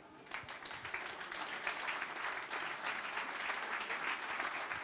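An audience applauding: many hands clapping, building up within the first second and then holding steady.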